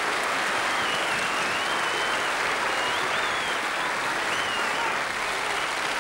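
Studio audience applauding steadily, with a few high wavering tones over the clapping.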